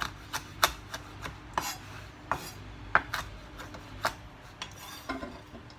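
A kitchen knife chopping dry fennel seeds on a wooden chopping board: irregular knocks of the blade against the board, about one or two a second, thinning out near the end.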